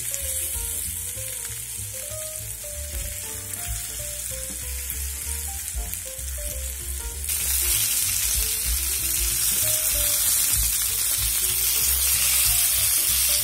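Flour-dusted chicken thighs frying skin-down in oil in a nonstick pan, a steady sizzle over heat just turned up to render the skin fat. The pieces are shifted in the pan, and the sizzle gets louder about seven seconds in. A soft background melody plays underneath.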